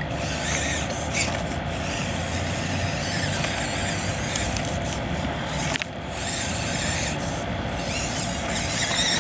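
Axial SCX24 micro RC crawler (Ford Bronco body) crawling over rocks: its small electric drive motor and gears whining steadily, with a thin high-pitched whine that comes and goes and tires grinding on rock.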